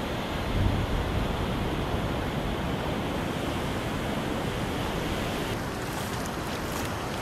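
Ocean surf washing onto a sandy beach, a steady rushing noise, with wind buffeting the microphone. About five and a half seconds in the sound shifts and faint clicks come in.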